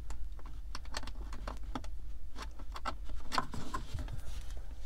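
Irregular small plastic clicks and taps of a hand fumbling a charging plug into the USB ports in a cramped recess of a car's centre console, worked in by feel, with a cluster of clicks about three and a half seconds in.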